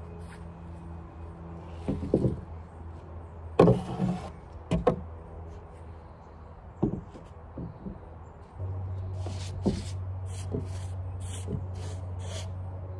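Lumber knocking on a wooden deck: long boards and 4x4 posts being set down and stacked, giving several sharp wooden knocks, the loudest about four seconds in. A steady low hum sits underneath, louder in the second half.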